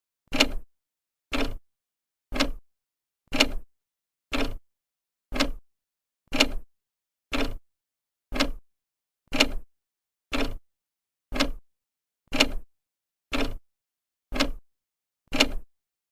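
Old clock ticking steadily, one short tick a second as the second hand steps, with silence between ticks.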